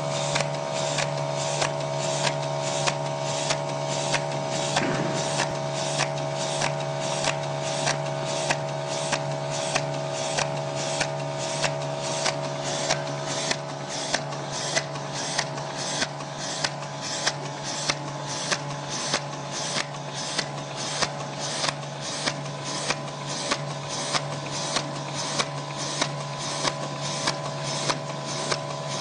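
DTJ-C semi-automatic capsule filling machine running: a steady hum with two held tones under regular sharp clicking, about two clicks a second, as capsules are loaded into the rotating ring.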